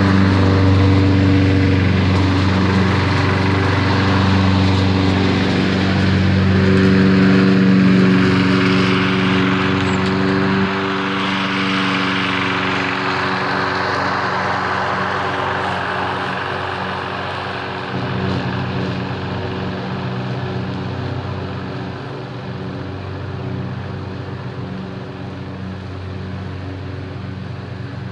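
Toro Recycler walk-behind mower's engine running steadily while cutting grass. It drops a step about eleven seconds in, then grows gradually fainter as the mower moves away.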